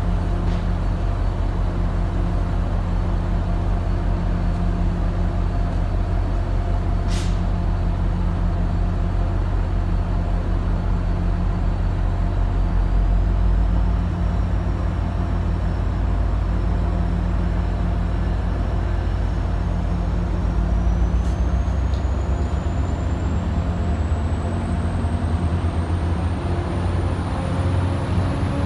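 MBTA train running with a steady low rumble and a thin, high-pitched whine that steps up in pitch partway through and then rises steadily, with lower tones climbing near the end as the train picks up speed. A sharp click sounds about a third of the way in.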